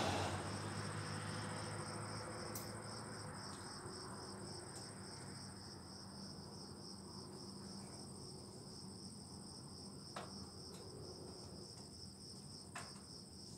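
Rumble of thunder dying away over the first few seconds, leaving crickets chirping steadily in a high, pulsing trill. Two faint clicks come near the end.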